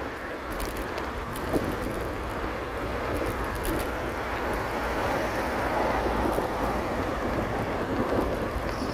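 Steady wind rushing over the microphone of a camera carried on a moving bicycle, with a single click about one and a half seconds in.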